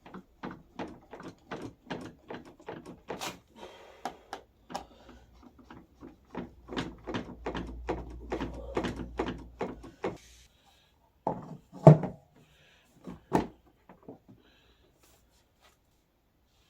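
Clicks and knocks from fitting the plastic rear wheel of a kids' ride-on car: a fast, even run of clicks, about three a second, for some ten seconds, then a few loud knocks.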